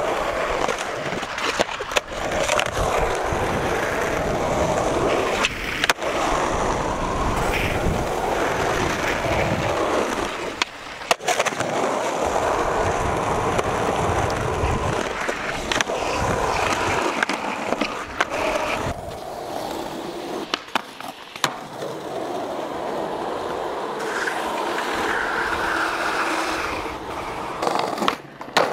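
Skateboard wheels rolling over asphalt and pavement in a steady rumble. Several sharp clacks of tail pops and board landings from street tricks break it, one near the end.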